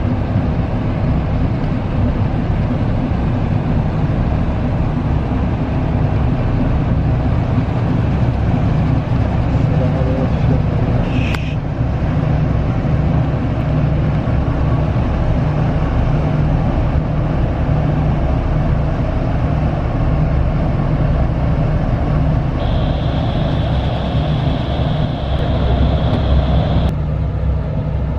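Steady low engine rumble, loud throughout. A brief high chirp sounds about eleven seconds in, and a thin high steady tone is held for about four seconds near the end.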